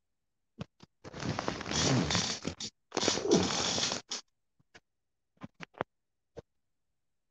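Handling noise on a phone's microphone: cloth and hand rubbing and scraping over it in two long rustling stretches, followed by a scatter of short clicks and taps.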